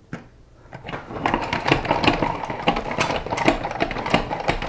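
Plastic pump-style salad spinner being pumped hard: a clack as the lid goes on, then about a second in a steady run of rapid ratcheting clicks and whirring as the basket spins wet potato chips to throw off their water.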